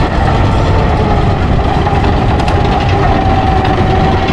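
Snowdon Mountain Railway train's engine running steadily: a low rumble with a steady whine held above it.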